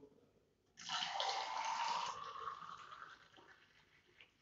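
Juice poured from a stainless steel bowl into a drinking glass: a splashing stream that starts about a second in, runs for about two seconds and trails off.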